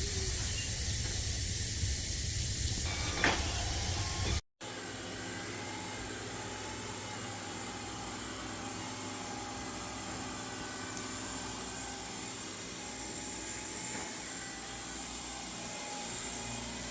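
Narwal Freo robot vacuum-mop running: a steady motor hum and hiss with several even tones. The sound breaks off briefly about four seconds in and resumes a little quieter.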